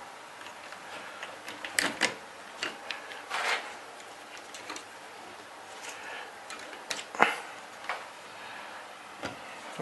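Small clicks and rustles of electrical wires being bent and pushed into WAGO connectors by hand, with a sharper click about seven seconds in.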